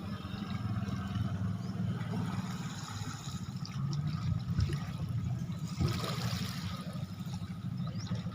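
Speedboat running steadily, a constant low engine hum under the rush and splash of water.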